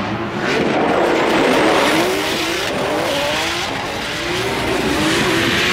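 Two drift cars sliding in tandem, engines revving up and down with the throttle while the tyres squeal and hiss under wheelspin.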